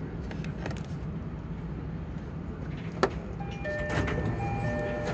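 Steady low hum of a train standing at a station platform, with a single sharp click about three seconds in. Just after the click, an electronic chime starts: clear tones alternating back and forth between two pitches in a repeating pattern.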